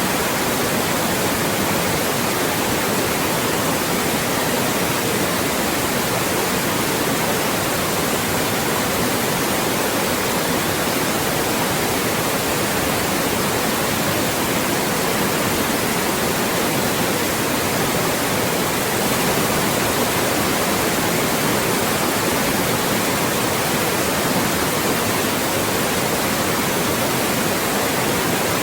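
Loud white noise: a steady, even hiss spread across the whole range, with no change throughout.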